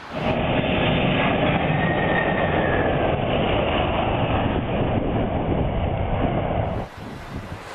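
Aircraft landing in a strong crosswind: a loud, steady rush of engine noise and wind that cuts off abruptly about seven seconds in.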